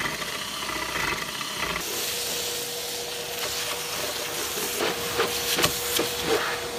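A cordless drill with a Forstner bit finishes boring a hole through plywood. About two seconds in, a steady hiss with a constant hum takes over: a vacuum cleaner running. A few light knocks follow as its hose is pushed into the new hole.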